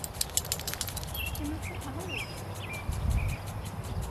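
Small birds chirping in short calls, with a quick run of sharp clicks in the first second and a low rumble of wind or handling noise about three seconds in.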